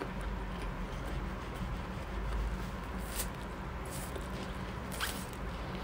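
Close-miked eating of instant yakisoba noodles: noodles slurped from chopsticks and chewed, with short slurps about three, four and five seconds in.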